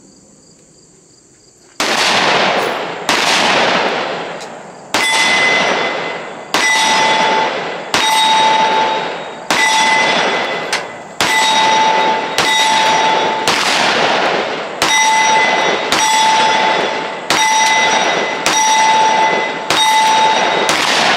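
Smith & Wesson M&P 10mm pistol fired in slow, aimed single shots starting about two seconds in. It fires about fourteen shots, one every second to second and a half. From the third or fourth shot on, most shots are followed by a short ringing tone, steel targets being hit.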